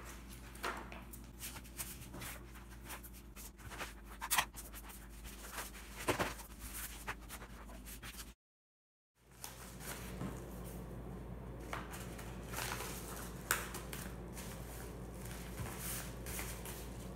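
Paper and envelopes being handled on a table: sheets rustling and sliding, with scattered soft taps and clicks over a faint steady hum. The sound drops out completely for under a second about halfway through.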